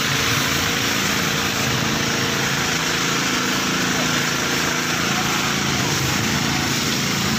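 Water tanker's engine running steadily, with a steady hiss of water spraying from its hose onto the road.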